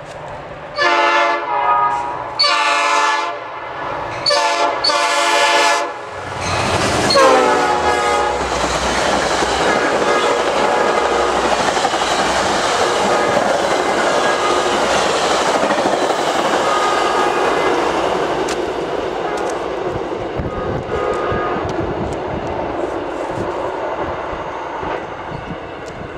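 Metra commuter locomotive's air horn blowing four blasts, long, long, short, long, the standard grade-crossing signal, the last one falling in pitch as the locomotive passes. Then the express train rushes by at speed with wheels clattering over the rail joints, slowly fading as it moves away.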